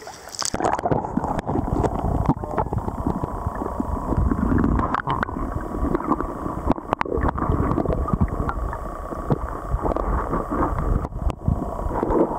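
Underwater sound of a river heard through a submerged camera: a continuous low rumbling and gurgling of moving water, with frequent knocks and clicks as a gloved hand works among the rocks and grabs an old phone. It starts abruptly about half a second in, as the camera goes under.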